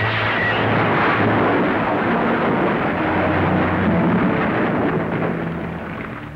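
Loud rushing roar of an aircraft landing on a waterlogged runway, its engines and the thrown-up spray together. It starts abruptly and dies away near the end.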